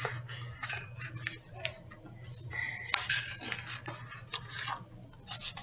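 A picture book being handled and its pages turned: an irregular run of short clicks, taps and paper rustles.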